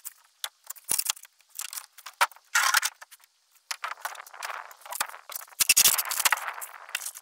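Irregular scraping and crunching as flotation foam and rotten wood are dug out by hand from around a boat's stringer, with scattered sharp clicks. The bursts come thicker and louder in the second half.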